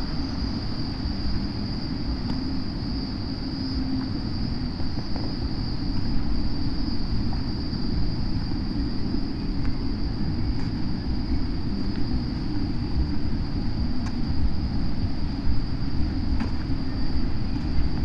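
Steady high-pitched insect drone from the trees over a constant low, uneven rumble.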